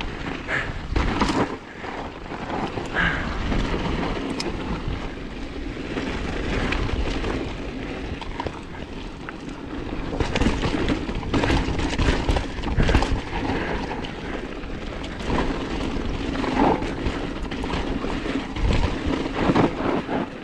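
Full-suspension mountain bike descending rough dirt singletrack: tyres crunching over dirt and rocks and the bike rattling over bumps in many short jolts, with wind rushing steadily on the microphone.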